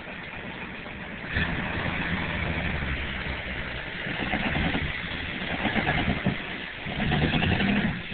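Early-1980s Ford F-series pickup's engine running as the truck drives through mud, revving up in surges about a second in, again in the middle, and loudest near the end before it eases off.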